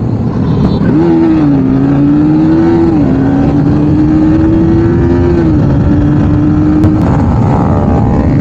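Motorcycle engine pulling hard at road speed, its note climbing and then dropping at each upshift, about a second and a half, three and five and a half seconds in, over heavy wind rush on the microphone.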